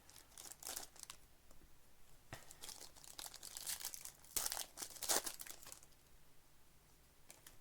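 Trading card pack wrappers crinkling and tearing open, with cards being handled, in irregular scratchy bursts that thin out near the end.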